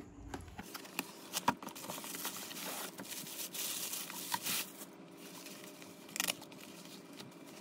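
A cardboard box of binoculars being opened by hand: irregular rustling, scraping and tearing of the packaging, with a few light knocks and clicks.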